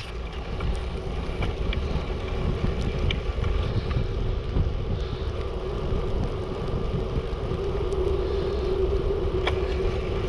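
Bicycle being ridden along a snowy track: steady rolling rumble of the tyres with wind on the microphone, a steady hum that grows a little louder near the end, and a few scattered clicks.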